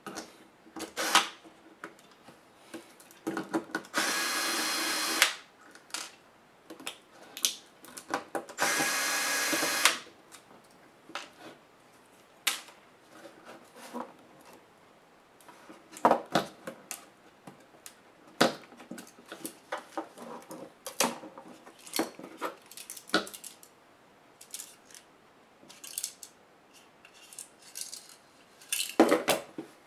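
Cordless electric screwdriver running twice, about a second each, backing out the screws that hold a laptop's CPU heatsink and fan to the motherboard. Between and after the runs, light clicks and taps of small metal parts being handled as the heatsink assembly is lifted off.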